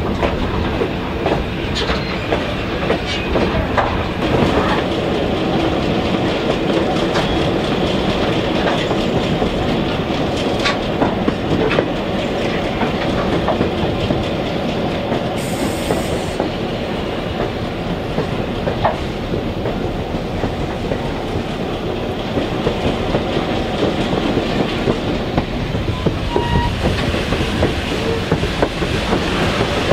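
Passenger train cars rolling along the track, heard from an open window of the moving car: a steady rumble of wheels on rail with scattered clicks from the running gear. A brief hiss sounds about halfway through.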